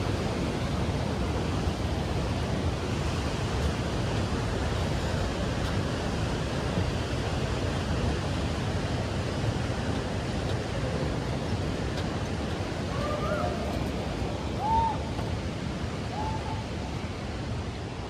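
Steady rush of fast-flowing creek water, with a few brief whistled notes a little past the middle.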